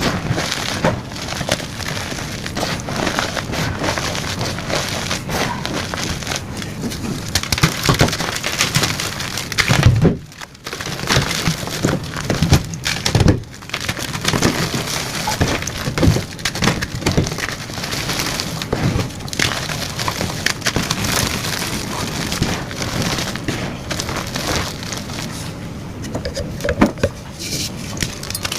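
Blocks of gym chalk being crushed and crumbled, a dense run of crunching and crackling, with a short break about ten seconds in and another brief one about three seconds later.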